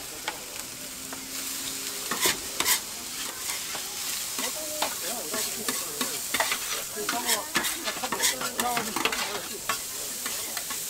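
Fried rice sizzling on a flat iron griddle while two metal spatulas scrape, chop and clack against the plate. The strikes come quick and irregular from about two seconds in, over a steady high hiss.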